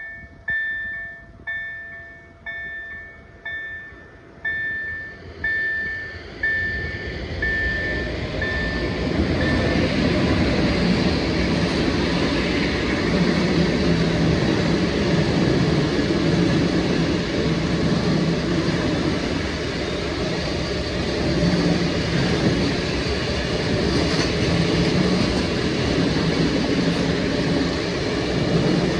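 KLD-4103 level-crossing bell striking about once a second, about ten strokes, each ringing out and fading. A train's passing noise swells up over the bell and drowns it after about ten seconds, then runs on loud and steady.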